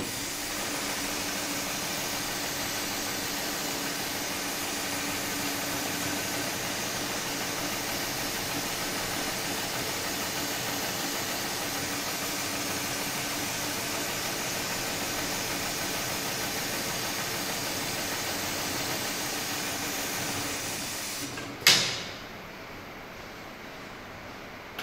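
Steady hiss of compressed air that cuts off about three-quarters of the way through with a sudden loud burst of air, fading within about half a second.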